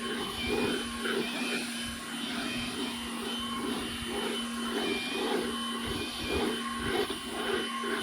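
Chainsaw mill cutting a slab lengthwise through a log, the saw held at a steady high speed with a regular pulsing in its sound.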